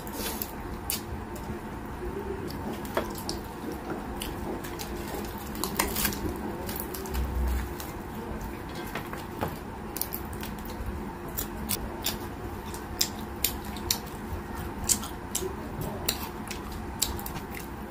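Close-up eating sounds of fried chicken eaten by hand: wet smacking and crisp chewing clicks, scattered and irregular, coming thicker in the second half. A single low bump about seven seconds in.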